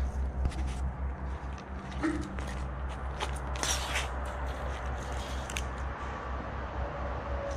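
A steady low hum under scattered crunches and knocks, the loudest a short cluster of crunching about three and a half seconds in.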